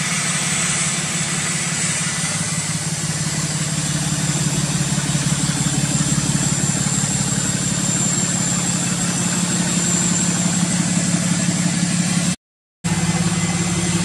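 Cummins turbo-diesel in a Dodge Ram pickup idling steadily through a straight-pipe exhaust, with a faint high steady whistle over it. The sound cuts out for a moment near the end.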